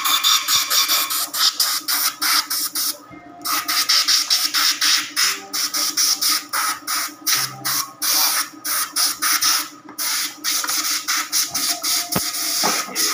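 Compressed-air blow gun hissing in rapid repeated bursts, several a second, with a short pause about three seconds in, blowing out a dismantled transmission housing.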